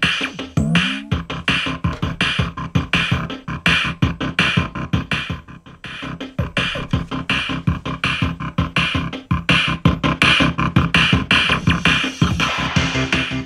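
Electronic music with a steady drum-machine beat and synthesizer, streamed over Bluetooth from a phone and played through the small speakers of a budget Battletron RGB gaming soundbar.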